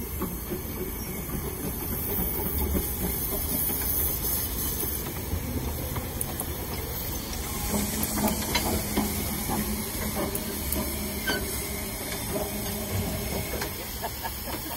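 Hunslet-built narrow-gauge steam locomotive hissing steam as it runs slowly alongside, with a low rumble. Scattered light metallic clanks come about halfway through and again near the end.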